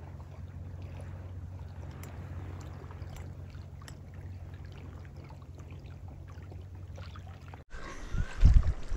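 Lakeshore ambience: a steady low hum with light water lapping at the bank. Near the end the sound cuts abruptly to louder, gusty wind rumble and handling noise on the microphone.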